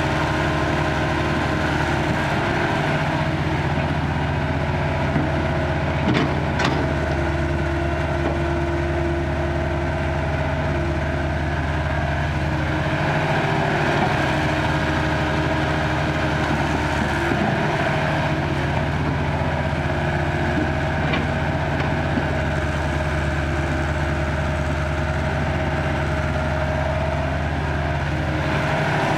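Caterpillar E70 crawler excavator's diesel engine running steadily while it digs soil and loads a dump truck. The engine note shifts slightly as the hydraulics take load, and a couple of sharp knocks come about six seconds in.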